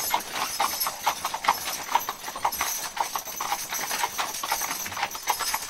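Hooves of a three-mule team pulling a covered wagon at a walk, a continuous uneven clip-clop of several strikes a second.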